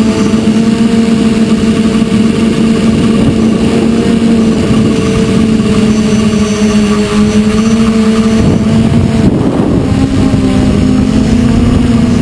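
TBS Discovery quadcopter's electric motors and propellers buzzing at a steady pitch, heard from on board with wind rush. About nine seconds in there is a brief rush of noise, and the buzz then settles a little higher.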